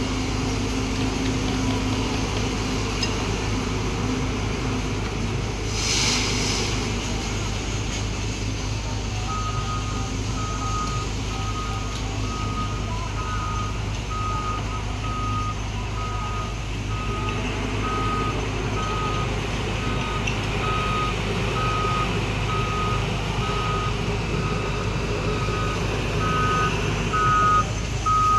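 A heavy diesel construction vehicle's engine rumbles steadily while its reversing alarm beeps at a regular pace, about one and a half beeps a second, starting about a third of the way in. There is a short hiss early on and a few loud knocks near the end.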